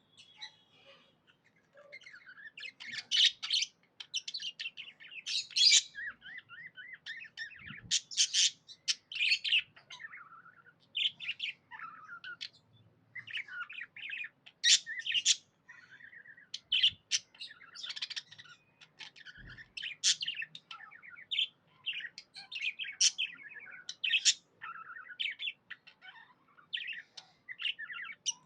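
Budgerigar chattering and warbling in a steady stream of short chirps and twittering phrases, broken by louder sharp chirps, the happy chatter of a contented budgie.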